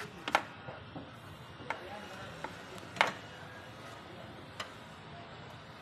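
A handful of sharp metallic clicks and knocks at irregular intervals, from hand tools and metal parts being handled in a car's engine bay. The loudest comes about three seconds in.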